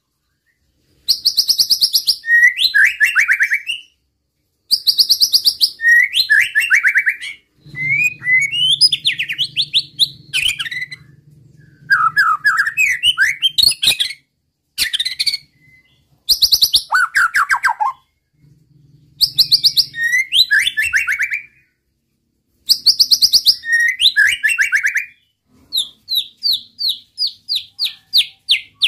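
White-rumped shama (murai batu) singing loud phrases in bursts every two to three seconds, each a fast high trill followed by slurred whistled notes. Near the end comes a quick run of repeated notes, about six a second. This loud, rapid bursting song is what keepers call "nembak".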